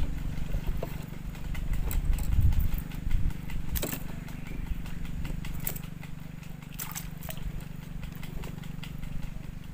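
Steady low hum of a distant motor, heaviest in the first few seconds, with a few sharp clicks of fishing gear being handled about four, six and seven seconds in.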